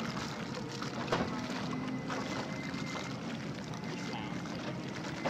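Jet ski engine running at speed out on the water, a steady distant hum under a noisy hiss of wind and water, with a short sharp knock about a second in and another at the end.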